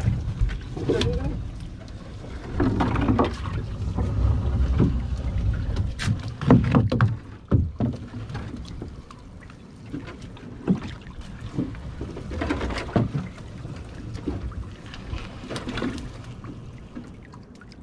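A nylon fishing net being worked over the side of a small fishing boat: irregular knocks and taps against the hull, with water sloshing and splashing at the side. A low rumble runs under the first few seconds.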